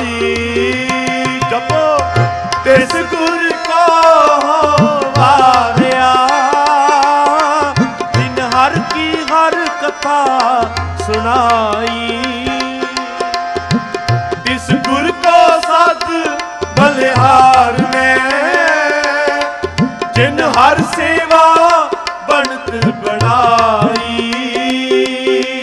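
Sikh kirtan music: tabla strokes keep a steady rhythm, with deep bass-drum notes near the start and again about eleven seconds in, under a continuous melodic line that glides and bends in pitch.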